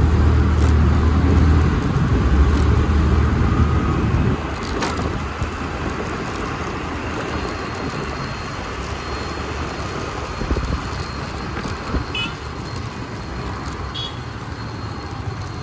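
Wind rush and engine and road noise from a moving motorbike riding through city traffic, heard from the handlebars. A heavy low buffeting for the first four seconds eases into a steadier rush.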